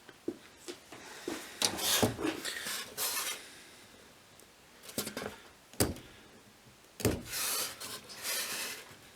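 Scratching strokes of a marking tool drawing layout lines on steel bar stock, each stroke lasting about a second, with a few sharp clicks and knocks of tools on the metal in between.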